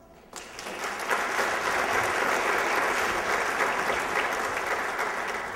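Audience applauding. It starts about a third of a second in, is in full swing within the first second, and fades away near the end.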